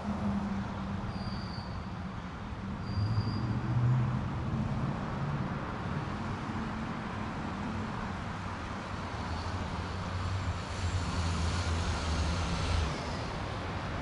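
Road traffic ambience: a steady wash of vehicle engines running and passing, with two brief high squeaks about one and three seconds in. A vehicle's low engine hum grows stronger in the second half and drops away about a second before the end.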